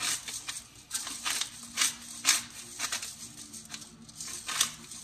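Black pepper being ground from a clear grinder over a bowl: a run of short crunching strokes, about two to three a second, as the grinder head is twisted back and forth.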